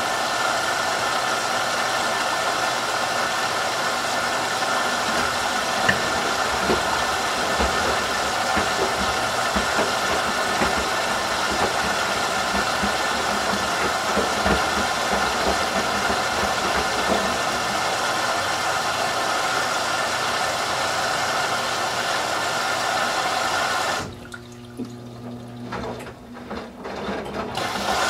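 Whirlpool Duet WFW97HEDC direct-drive front-loading washer filling for its final rinse: a steady rush of water with the drum tumbling wet towels and soft thumps. Near the end the rush cuts out suddenly for about three seconds, leaving a quieter hum, then starts again.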